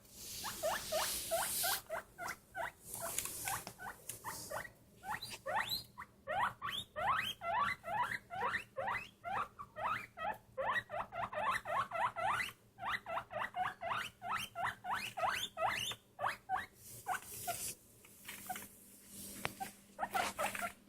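A small pet squeaking in long runs of short rising squeaks, several a second. Bursts of hissing, rustling noise come near the start and again near the end.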